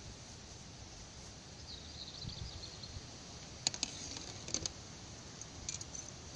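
A few sharp clicks and light taps, clustered about three and a half to four and a half seconds in and once more near the end, from a fishing pole and tackle being handled at the bank. Under them runs a faint steady outdoor background, with a faint high twittering around two seconds in.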